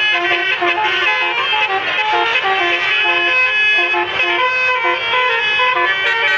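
A bus's basuri musical air horn (telolet horn) playing a tune: a nasal, reedy run of short notes stepping up and down a few times a second.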